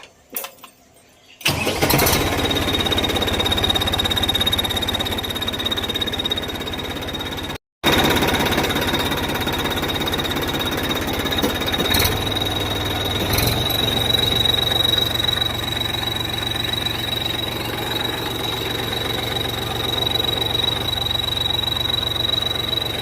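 Tractor engine started about a second and a half in and running, with a steady high whistle from a turbo-sound whistle fitted to its exhaust silencer riding over the engine note. The sound cuts out briefly about a third of the way through, then resumes, and the engine note changes a little past halfway.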